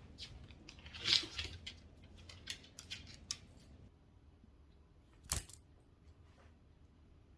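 Light metallic jingling about a second in, followed by a few scattered sharp clicks and one sharper click just past five seconds.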